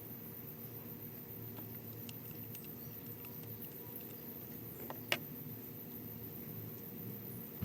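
Low steady background hum with a few faint light clicks, and one sharper click about five seconds in.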